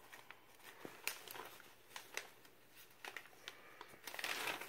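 Paper being handled: scattered light crinkles and clicks, then a longer rustle near the end.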